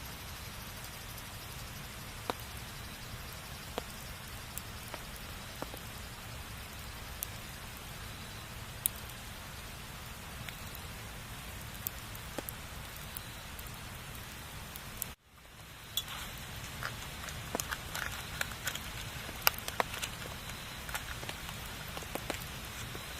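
Wood fire crackling: a steady low hiss with scattered sharp pops. About fifteen seconds in the sound cuts out for a moment, then comes back with denser crackling.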